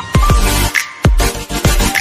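Electronic background music with a heavy beat of deep bass drum hits.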